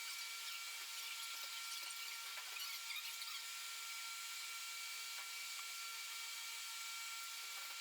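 Faint steady room tone: a thin high whine with light hiss and a few soft ticks, with no engine running.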